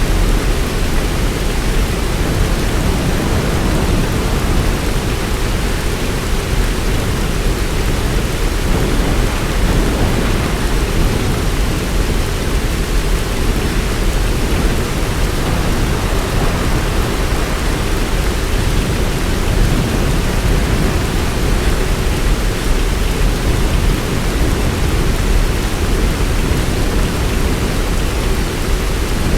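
Heavy rain falling steadily with a deep, even low rumble, as in a thunderstorm.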